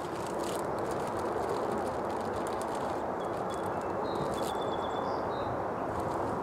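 Steady outdoor background noise with faint light rustling and clicking from a plastic bag being handled, and a few faint high chirps about halfway through.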